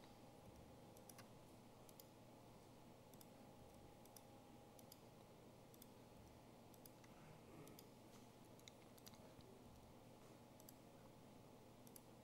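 Near silence: faint computer mouse clicks at irregular intervals, often in quick pairs, over a low steady room hum.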